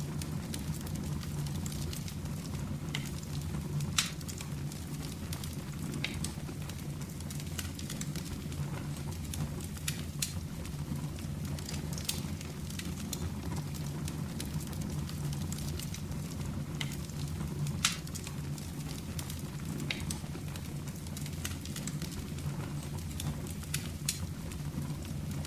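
Fire in a fireplace crackling over a steady low rumble, with scattered small crackles and two louder pops, one about four seconds in and one near eighteen seconds.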